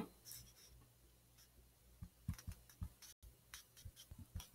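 Faint clicks and taps of a stylus on a tablet screen as a word is handwritten, beginning about two seconds in, with near silence before.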